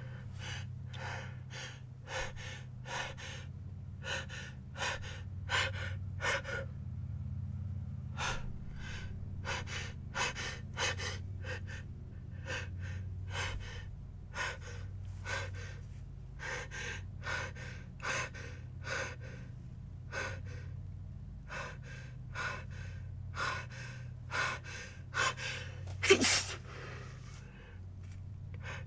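A person's sneeze build-up: a long run of short, sharp gasping breaths, about two a second with a couple of brief pauses, ending in one loud sneeze near the end.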